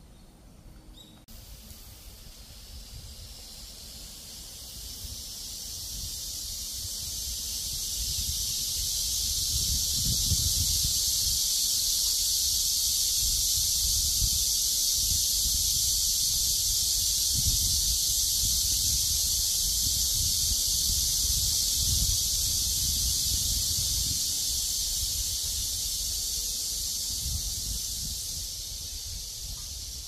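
A chorus of cicadas buzzing in one continuous high-pitched drone. It swells up from about a second in, holds loudest through the middle, and fades somewhat near the end. Wind gusts rumble low underneath.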